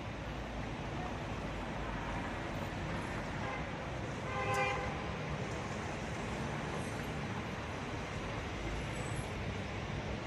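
Steady street traffic noise, with one short car horn toot about four and a half seconds in.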